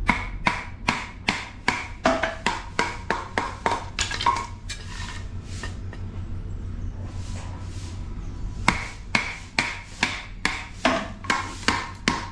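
Wood being chopped into small kindling pieces for a fire with quick, sharp strokes, about three a second. The strokes come in a run of around a dozen, pause for about four seconds, then start again.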